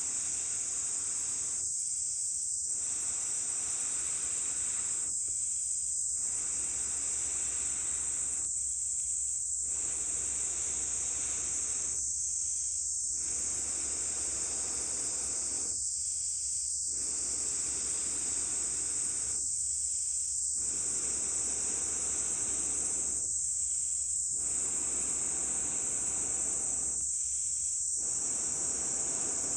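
Air blown in long, steady breaths through a fire-blowing pipe into a campfire: each blow rushes for about three seconds, then stops briefly for an inhale, eight or nine times in a row. A constant high drone of summer insects runs underneath.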